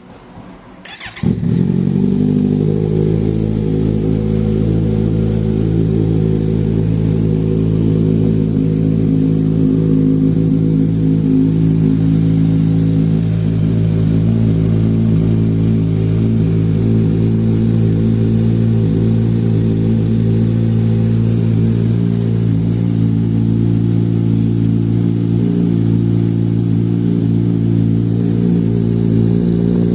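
Kawasaki Z1000's inline-four engine through an SC Project aftermarket exhaust, starting up about a second in and then idling loudly and steadily.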